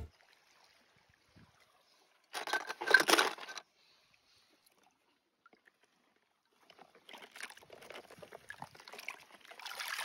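Water in a plastic tub splashing and sloshing as a hand moves through it among floating plastic balls: one short burst of splashing about two and a half seconds in, then a steadily growing patter of sloshing and dripping over the last few seconds as a toy car is lifted out of the water.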